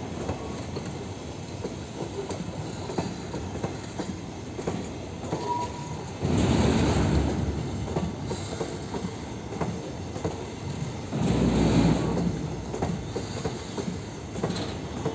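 Diesel-hauled train of NMG wagons rolling past, its wheels rumbling steadily and clicking over rail joints. Two louder clattering surges come about six and eleven seconds in.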